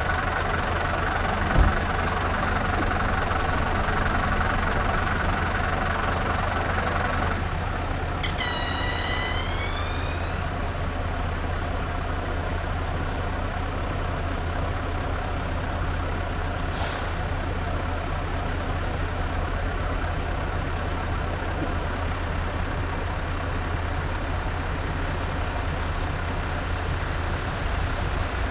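Heavy dump truck's diesel engine idling steadily. A single thump comes about two seconds in, and a higher hum drops away after about seven seconds. Then comes a hiss of air from the truck's pneumatic brake system with a whistle that dips and rises in pitch, and about halfway through a short, sharp burst of escaping air.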